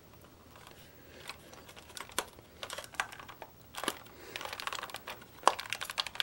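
Plastic clicking and crackling from a Walthers Proto model passenger car's body and roof as it is twisted by hand to break the roof's retaining tabs loose. The clicks are scattered, some in short clusters, with the sharpest about five and a half seconds in.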